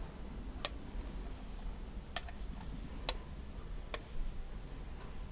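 Four short, sharp ticks, unevenly spaced, over a low steady hum.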